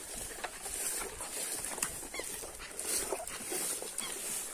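Footsteps rustling through grass and leaf litter, with many small crackles, over a steady high insect hiss; a few faint animal calls sound in the distance.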